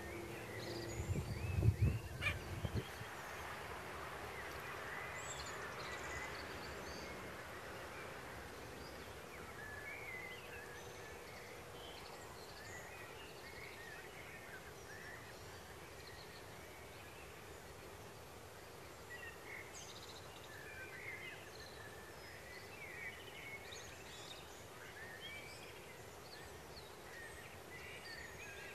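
Outdoor flock ambience: a steady background hiss with scattered short, high bird chirps throughout. A few low thumps come in the first three seconds.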